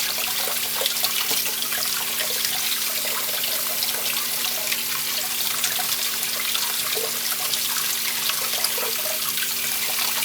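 Water running steadily from a tap into a sink, most likely rinsing the sharpening mud off the knife blade so the edge can be inspected.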